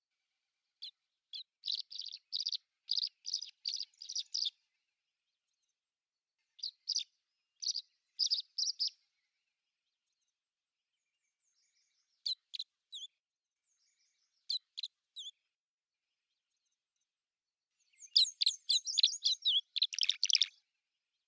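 A small bird chirping in short runs of quick high notes with pauses between them; a denser, louder run of chirps comes near the end.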